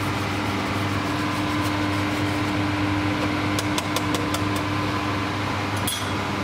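Steady hum of a commercial kitchen's extraction fan, with a handful of light metallic clicks of utensils against steel about halfway through.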